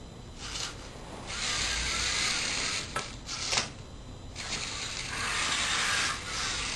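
LEGO Mindstorms robot's electric motors and gears whirring in three spells as it drives and works its claw to pick up a ball, with two sharp clicks about three seconds in.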